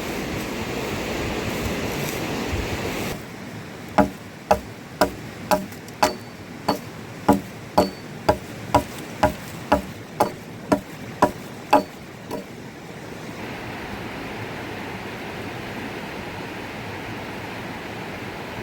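A series of about sixteen sharp strikes, roughly two a second, each with a short ring, as from a hammer or similar tool driving into wood. Steady water noise fills the opening seconds and returns after the strikes stop.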